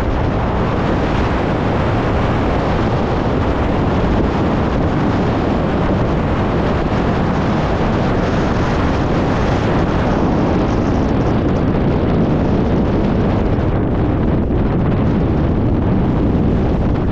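Wind blowing across the microphone: a loud, steady rush with no breaks.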